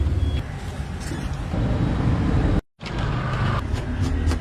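Street traffic noise, with a steady low rumble of passing vehicles and scattered clicks. The sound drops out to silence for a moment about two and a half seconds in, then returns.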